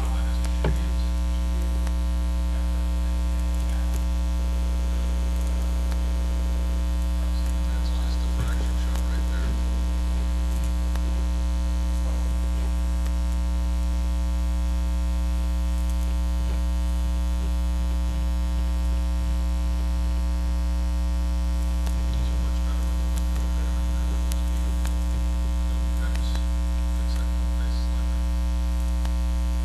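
Loud, steady electrical mains hum, a low drone with a stack of higher overtones, with a few faint ticks scattered through it.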